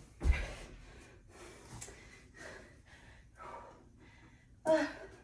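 A woman panting hard from burpees: short, noisy breaths about every half second, with a thud about a third of a second in and a louder voiced gasp near the end.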